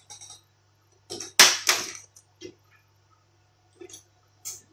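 Plastic bottom cover of a Lenovo ThinkPad E14 Gen 4 being pried off the laptop: the cover's clips snap loose in a quick run of sharp clicks and plastic knocks, loudest about one and a half seconds in, with a few lighter clicks near the end.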